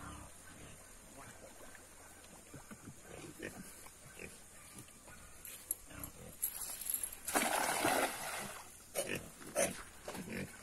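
Hand-thrown cast net landing on a pond: a splash lasting about a second as the weighted net hits the water, about seven seconds in.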